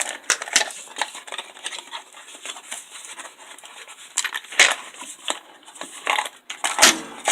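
Steel letter and number stamps being handled in their case: light clicks and rattles of small metal pieces, with a few sharper clacks about halfway through and near the end.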